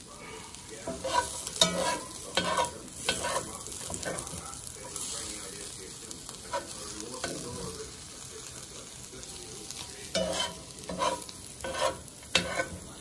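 Corned beef with onion and bell pepper sizzling in a frying pan, with a utensil stirring and scraping it. The utensil clicks against the pan in two busy spells, one shortly after the start and one near the end, with steady sizzling in between.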